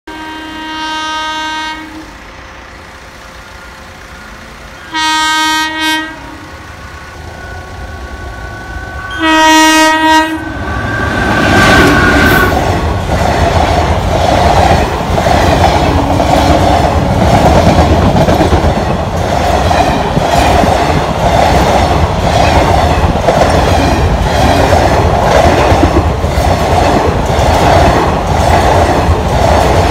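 Train horn sounding a long blast, then two short ones, then another blast, before a train passes close by. The wheels rumble and clatter in a steady clickety-clack that lasts to the end.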